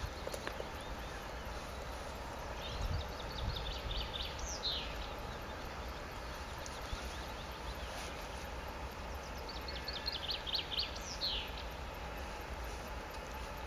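A songbird singing twice, each song a quick run of high notes ending in a falling flourish, over a low steady rumble.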